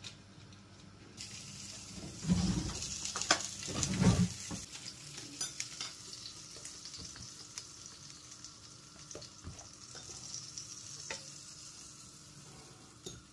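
Thin pancakes (naleśniki) sizzling in a hot nonstick frying pan, the sizzle starting about a second in. Louder scraping and knocking of a wooden spatula and the pan come around two to four seconds in, with a few light clicks later.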